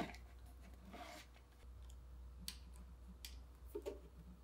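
Faint handling noise of a coiled electrical wire being pushed up into a milling machine's head housing: a few scattered sharp clicks and soft knocks over a low steady hum.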